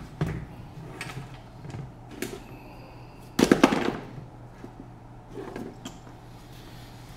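Knocks and clatter of objects being handled on a workbench: a few light clicks and taps, then a louder rattle of several quick knocks about three and a half seconds in, over a steady low hum.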